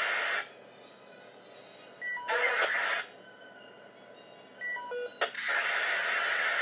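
Bursts of steady electronic static hiss that switch on and off abruptly, with quiet gaps between them. Twice a quick three-note beep steps down in pitch just before the hiss comes back, and a sharp click comes about five seconds in.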